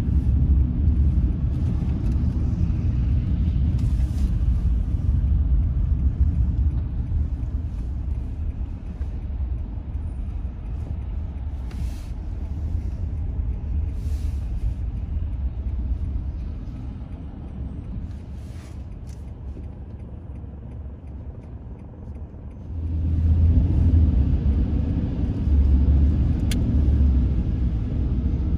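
Car driving on city streets: a steady low rumble of engine and road noise. It eases off for a few seconds about three-quarters through, then comes back louder.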